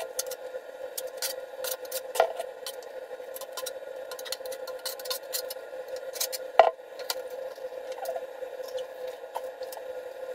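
Steel trowel scraping and slapping thinned tile adhesive onto the back of a ceramic tile, with scattered clicks and a few sharper knocks as the tile is handled and set against the wall. A steady hum runs underneath.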